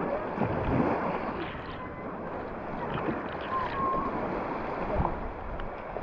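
Small waves lapping and washing over sand at the water's edge, a steady wash of water noise, with a couple of low thumps about a second in and near the end.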